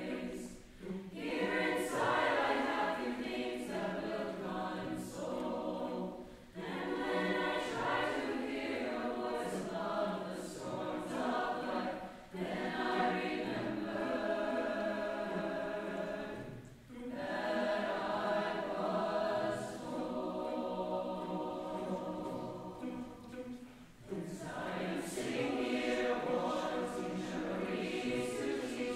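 A choir singing, in phrases several seconds long with short breaks between them.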